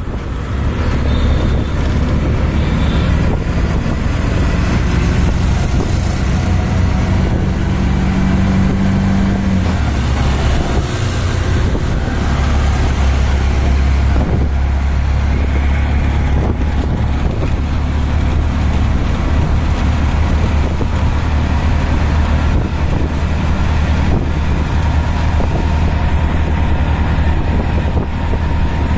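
Auto rickshaw's small engine running steadily at road speed, heard from inside the open-sided cab with wind and road noise; the engine note shifts about ten seconds in, then settles again.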